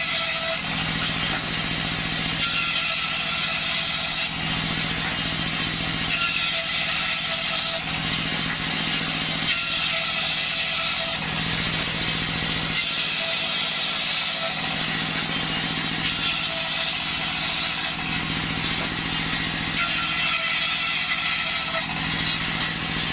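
Belt-driven circular saw bench ripping a waru (sea hibiscus) wood plank lengthwise. The blade's cutting noise runs steadily over the hum of its stationary engine.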